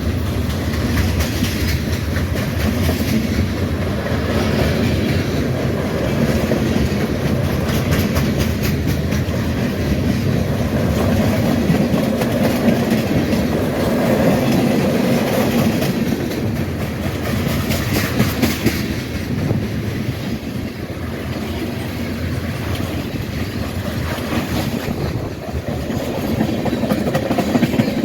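Freight train cars rolling past, steel wheels clicking over the rail joints in a steady clickety-clack over a continuous low rumble. The clicks come sharpest in clusters around the middle of the pass.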